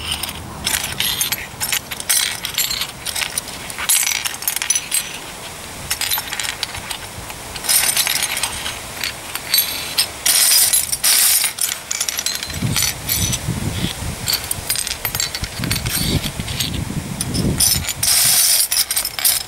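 Metal beer bottle caps clinking and rattling as a hand rummages through a loose pile of them and sets them one by one on a table top: a steady run of small metallic clicks. A low rumble comes in for several seconds past the middle.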